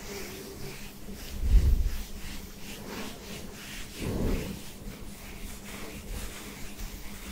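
Fingertips rubbing and scratching a buzz-cut scalp close to the microphone in quick repeated strokes, with two louder muffled bumps, one about a second and a half in and one around four seconds in.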